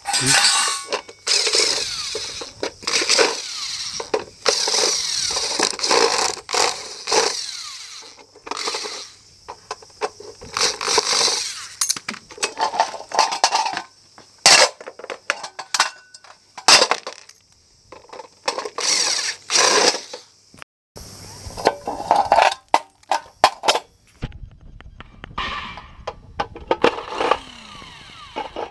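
A hand-held power driver runs in short bursts, backing screws out of an electric hot plate's plastic housing and metal base. Between the bursts come knocks and clatter as the plastic shell and metal parts are handled and set down on concrete.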